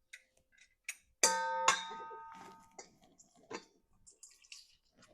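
A hard kitchen item is struck once during lemon juicing, giving a clear ringing clang that fades over about a second and a half. Small clicks and knocks of handling come before and after it.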